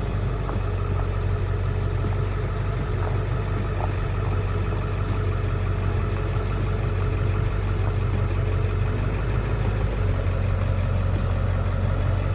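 Ford F250 Super Duty's 7.3-litre diesel V8 idling steadily, freshly started on a newly replaced starter.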